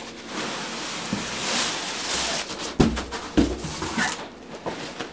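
Rustling of a nylon carry bag being handled and pulled out of a cardboard box. Two dull thumps come a little under three seconds in and again half a second later, as the bag is lifted out.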